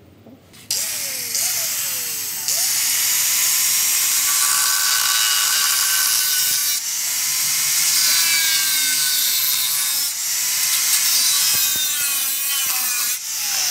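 Electric angle grinder with a thin cutting disc slicing through a steel pipe. It starts abruptly about a second in, and a rasping hiss of cut metal carries over the motor's whine, which sags in pitch each time the disc bites and then recovers.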